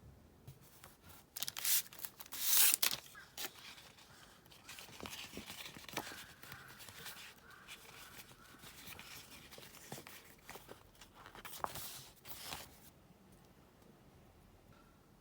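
Close-up paper-crafting sounds of stickers and masking tape being peeled, torn and pressed onto a diary page, heard as scattered rustles, scrapes and small clicks. The loudest are a run of peeling or tearing sounds about two seconds in and another about twelve seconds in.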